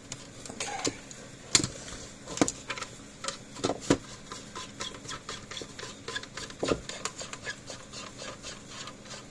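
Hand tool clicking and clinking on metal as a nut is tightened on a solar fence charger's battery terminal bolt: a run of small irregular clicks with a few sharper knocks, the loudest about a second and a half in and near four seconds.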